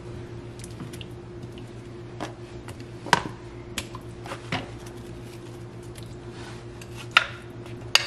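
Kitchen handling sounds at a slow cooker: onion chunks scraped off a plastic cutting board into the broth, with a few sharp knocks and taps as the board strikes the crock, then a wooden spoon starting to stir. A steady low hum lies underneath.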